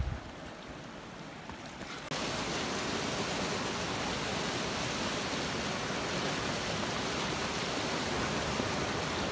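Flash-flood water rushing down a desert wash, the flow behind a debris plug: a steady, dense rushing noise that starts abruptly about two seconds in and stays loud. The first two seconds are quieter.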